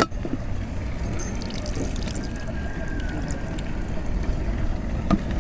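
Water trickling and splashing, over a steady low rumble, with a few small ticks.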